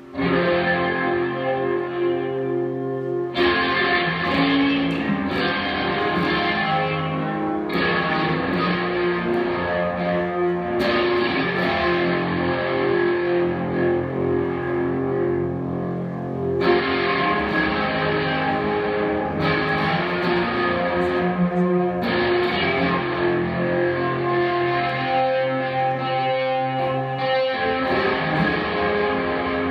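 Electric guitar, a Telecaster-style solid-body, played through effects pedals: layered, sustained chords and drones that shift to new chords every few seconds.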